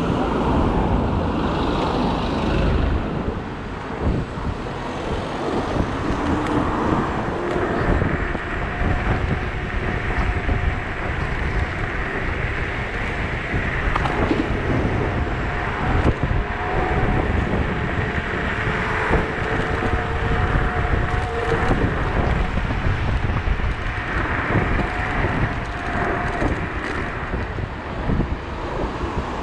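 Wind rushing over the microphone and road noise while riding an electric unicycle at speed at night, with faint steady whines that rise slightly in pitch around a quarter of the way in.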